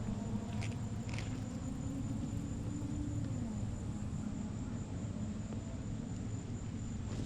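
A motor running steadily with a low hum, its pitch dropping slightly about three and a half seconds in; a couple of light knocks in the first second or so.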